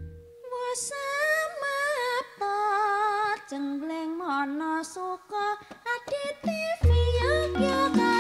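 Music: a woman singing a slow, ornamented melody with wide vibrato over sparse accompaniment, joined by bass and a fuller band about seven seconds in.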